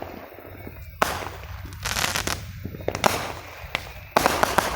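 Fireworks going off: sudden bursts about once a second, each trailing into crackling, with the loudest burst near the end.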